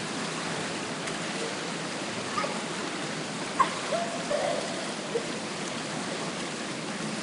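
Steady splashing and sloshing of water in an indoor swimming pool as a swimmer swims, with a few brief, faint voice-like sounds echoing in the hall.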